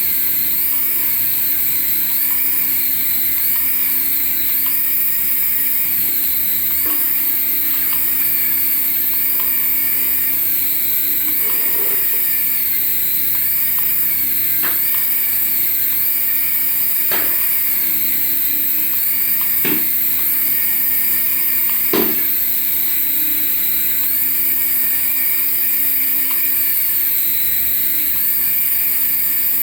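Small electric motor of a toy RC model running with a high-pitched whine, its pitch rising and falling every second or two as the throttle changes. A few sharp clicks or knocks come in the middle stretch.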